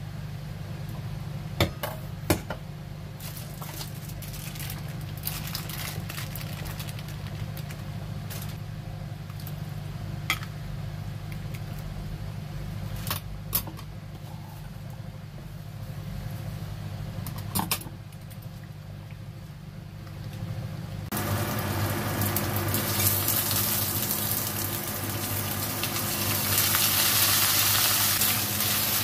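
A steady low hum with a few sharp metal clinks of cookware. About three-quarters of the way in it gives way to loud, steady sizzling as pieces of raw meat fry in hot oil in a stainless steel frying pan.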